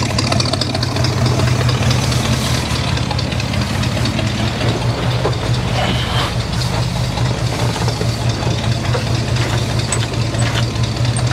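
Engine of a 1970s dentside Ford F-series pickup idling steadily, a deep even hum throughout.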